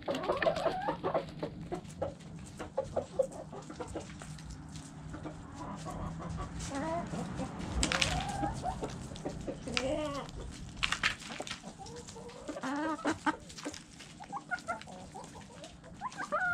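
Flock of chickens clucking while they feed, with short rising-and-falling clucks now and then over many quick, sharp pecking clicks as they peck at grain and vegetable scraps.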